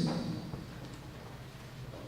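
The tail of a man's spoken word, then quiet room tone in a pause between names read aloud.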